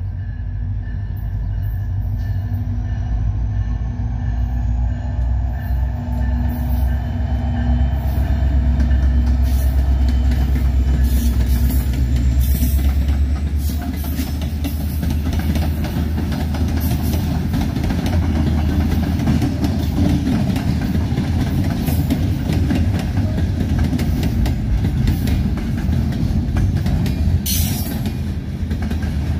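A freight train led by several diesel-electric locomotives (EMD SD70ACe, EMD SD70M, GE ES40DC, GE C44-9W) approaches and passes. A deep engine rumble builds and is loudest about ten seconds in as the locomotives go by, then gives way to the steady rolling clatter of freight cars on the rails, with a brief high screech near the end.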